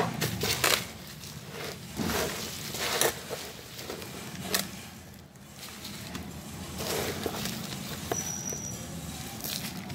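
A hand stirring dry vegetable peels, husks and leaves together with soil in a plastic tub: irregular rustling and crackling as the scraps are turned over, mixing kitchen waste and soil for compost.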